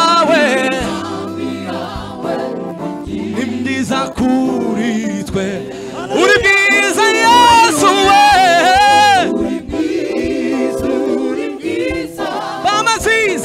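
Gospel praise-and-worship singing with music: voices singing together, with one voice rising loud and wavering with vibrato from about six to nine seconds in.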